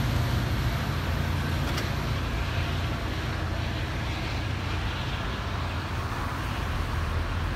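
Diesel passenger train with an EMD F40PH-2CAT locomotive (EMD 645 engine) pulling away: a steady low engine rumble with wheel and rail noise, slowly fading as the train recedes.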